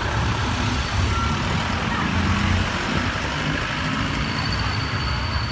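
Street traffic in a jam, vehicle engines running, with strong wind rumbling on the microphone. A thin, steady high tone comes in near the end.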